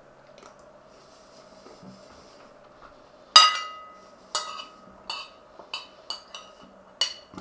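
Cutlery clinking against a ceramic plate while eating. One sharp, ringing clink comes about three and a half seconds in, followed by about six lighter clinks.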